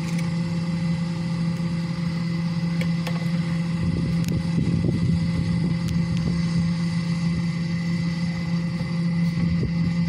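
Electric blower running steadily, forcing air into a wood-fired smelting furnace. A few light clicks are heard over it.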